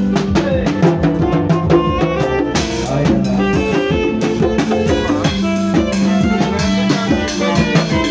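A small live band playing: a Korg i3 electronic keyboard carrying held chords and melody over a drum kit keeping a steady beat.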